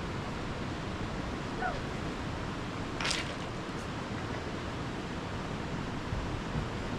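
Steady rushing noise, with one short, sharp swish about three seconds in.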